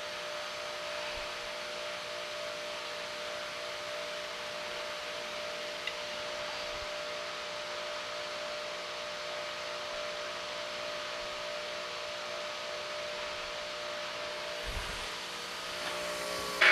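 Steady hum of an electric motor running without load, with several fixed tones over a soft whir and no grinding contact.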